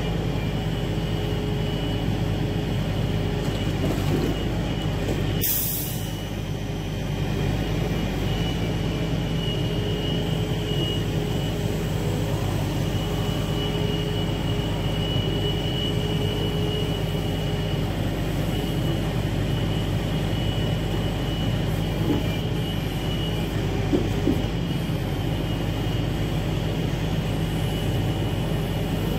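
Log truck's diesel engine running steadily to drive its hydraulic knuckle-boom log loader as the grapple lifts and sets down logs, with a steady high whine over it. A short hiss comes about five seconds in, and a few light knocks come near the end.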